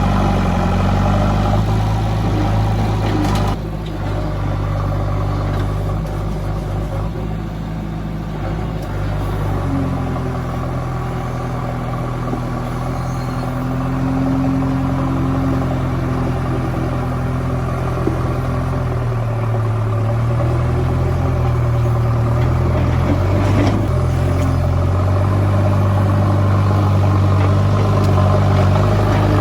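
JCB backhoe loader's diesel engine running under work, its note shifting as the revs change. It drops lower and quieter about four seconds in, then builds again and runs stronger near the end.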